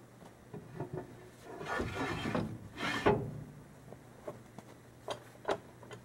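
Diffuser plate being scraped and slid back into place in an outdoor wood boiler's heat exchanger. The scraping rises over about a second, then comes a loud clunk about three seconds in, and a few light clicks near the end.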